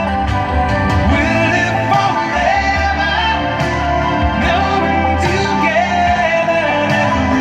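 A song with a singing voice and guitar, played back through a car audio system's front component speakers (DLS Nordica 6.2, run active) with the subwoofer switched off.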